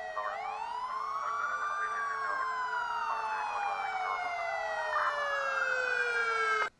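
Emergency vehicle sirens wailing, one sliding slowly down in pitch while another rises and falls; they cut off suddenly near the end.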